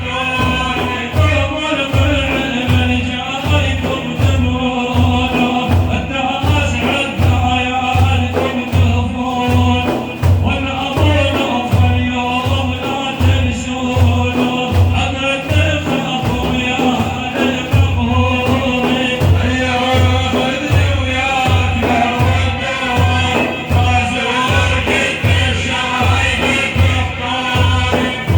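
Devotional praise song (madeeh) for the Prophet: voices singing a melodic line over a steady, evenly spaced low drumbeat.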